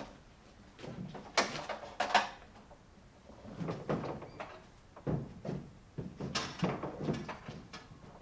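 Irregular knocks and clunks, loudest about one and a half and two seconds in, with faint voices between them.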